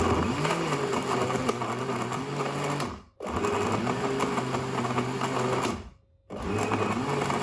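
Countertop blender running with a milk and fruit mixture in three pulses, cutting out briefly about three seconds in and again about six seconds in, each restart spinning up quickly to a steady pitch. The short pulses are meant to whip the shake into froth.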